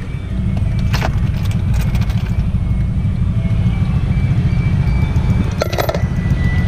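Steady low rumble of a car idling at a standstill, heard from inside the cabin with the window open, with two brief knocks, about a second in and near six seconds in.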